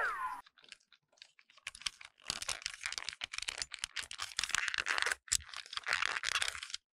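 Hard plastic toy train handled and pressed between the fingers: a dense run of small, irregular clicks and crackles of plastic parts that starts about two seconds in. A sweeping sound effect dies away at the very start.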